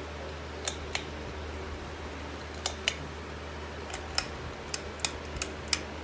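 Pull-chain switch of a Harbor Breeze Centreville ceiling fan clicking about ten times, mostly in quick pairs, over the steady low hum of the running fan motor.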